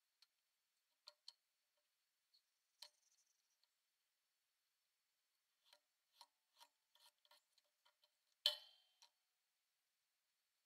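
Sparse faint clicks and ticks of a small knife blade cutting cowhide on a board, a quick run of them in the middle, with one sharper, louder click late on.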